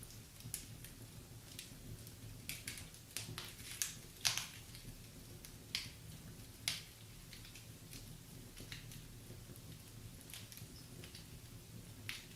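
Wood fire burning in a fireplace, the logs crackling with irregular snaps and pops, the sharpest about four and about seven seconds in, over a low steady rumble of flames.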